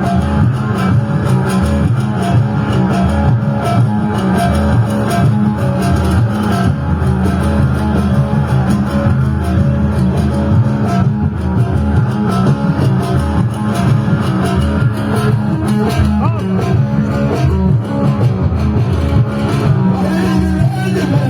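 Loud instrumental music from a live band at a party, led by plucked electric guitar over a steady bass line.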